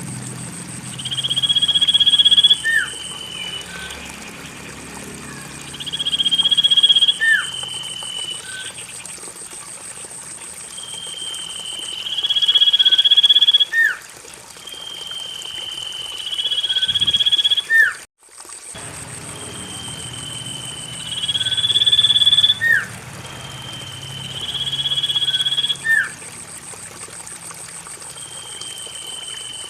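Common iora (cipoh) calling: a drawn-out high whistle that rises to its loudest near the end and finishes with a quick falling note, repeated about every five seconds. A steady high pulsing tone runs underneath.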